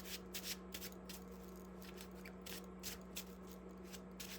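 Tarot cards being shuffled by hand: quick, faint papery flicks, several a second, over a steady low electrical hum.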